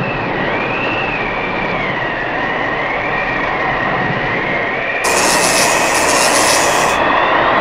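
Tornado wind blowing hard: a steady rushing noise with a high whistle that wavers slowly up and down. About five seconds in, the hiss turns louder and brighter.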